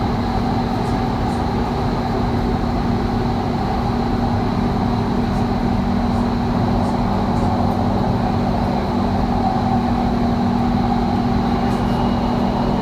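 Doha Metro train running between stations, heard inside the carriage: a steady rumble with a constant hum and a faint high whine.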